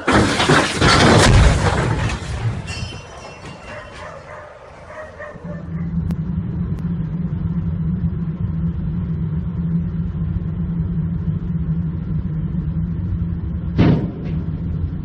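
A loud rushing noise for the first two seconds or so, from a tipper semi-trailer unloading sand. Then the steady engine and road drone of a car heard from inside the cabin, broken about 14 seconds in by one sharp bang as a truck driving with its dump body raised strikes an overpass.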